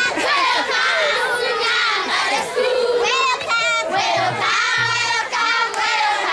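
A crowd of schoolchildren singing and shouting together, many high voices overlapping.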